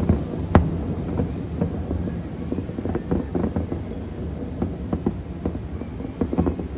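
Distant fireworks going off: two sharp bangs in the first second, then a run of smaller pops and crackles over a steady low rumble.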